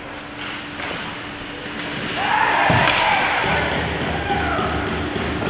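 Ice hockey play at the goal: one hard slam about three seconds in, during a scramble in front of the net, with players shouting around it.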